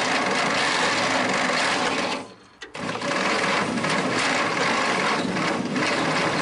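Starter cranking a Chrysler industrial 218 flathead six that turns over without firing. It stops for about half a second a little over two seconds in, then cranks again. The engine is low on compression after decades of sitting, with five weak cylinders and one dead one that the owner suspects has a valve stuck open.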